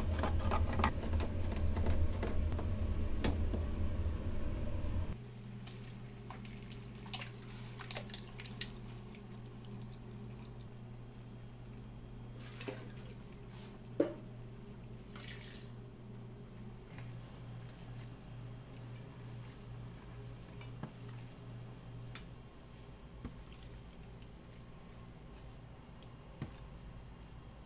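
Hand can opener clicking as it is cranked around the rim of a large tin can, over a loud low rumble. After about five seconds this stops and a steady low kitchen hum remains, with wet sloshing of canned tomatoes poured into a metal pot, scattered small clicks and one sharp knock about halfway through.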